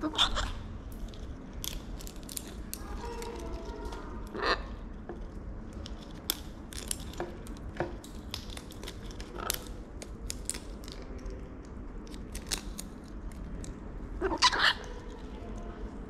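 Macaws cracking and chewing seeds and peanuts with their beaks, making many short crunches and clicks. Harsh macaw squawks break in just after the start, about four seconds in, and loudest near the end.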